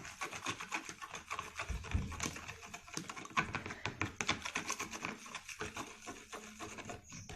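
Stirring a thick mixture of dish soap, salt and toothpaste in a container: a fast, continuous run of small clicks and scrapes from the utensil.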